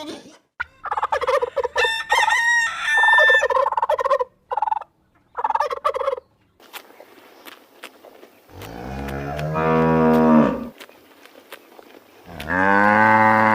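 A string of short, choppy animal calls during the first six seconds, then a cow mooing twice: two long, low moos about four seconds apart.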